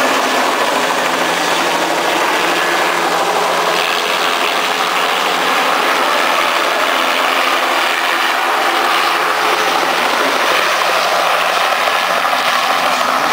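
A loud, steady mechanical drone of a running engine, with a low hum under it.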